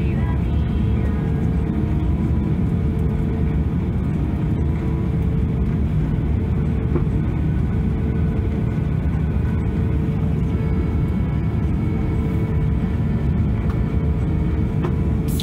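Airbus A340-600 on the ground with its Rolls-Royce Trent 556 engines idling, heard from inside the cabin as a steady low rumble with a constant hum.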